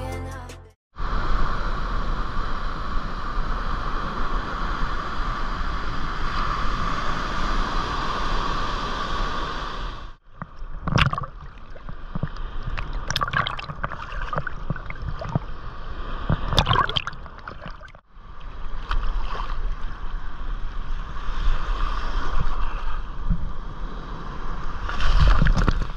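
Sea water washing and sloshing at the shore, in three takes, each cut off abruptly, with sharper splashes in the middle one.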